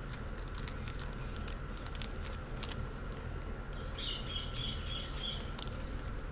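Scattered light clicks and taps of small watch parts and tools being handled. A bird chirps in a short warbling phrase about four seconds in.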